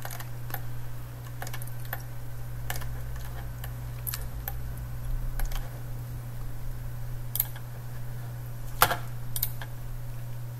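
Irregular clicks of a computer mouse and keyboard, about a dozen of them with the loudest near the end, over a steady low hum.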